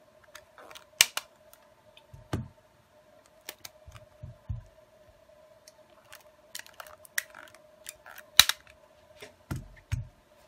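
Rubber bands being stretched around a smartphone and snapping against its body to hold the newly fitted screen in place: irregular sharp snaps and clicks, the loudest about a second in and again near the end, with a few dull knocks of the phone being handled on the mat. A faint steady hum runs underneath.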